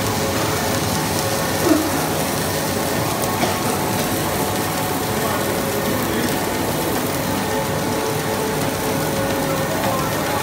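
Snack-food extruder running steadily on a processing line: a constant, dense mechanical running noise with a steady hum and hiss, and a brief small blip about a second and a half in.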